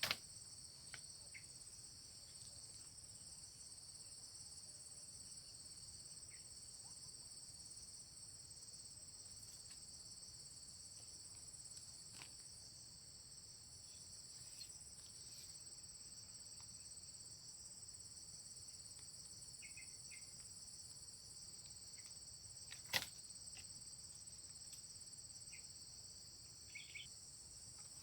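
Steady chorus of insects trilling at a high pitch, with one sharp click about two-thirds of the way through and a few faint short chirps.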